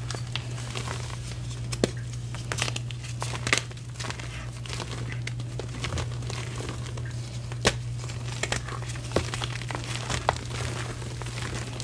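Hands squeezing and crumbling chunks of reformed gym chalk (chalk powder pressed back into blocks) into loose powder: dense, irregular crackling and crunching with a few sharper snaps scattered through.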